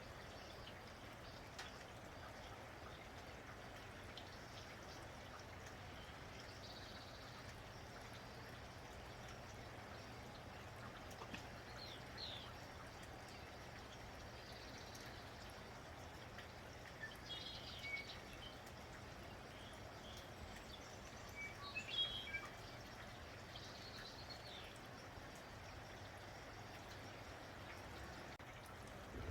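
Light rain falling steadily, with birds chirping now and then in short high calls, a small flurry of them about two-thirds of the way through.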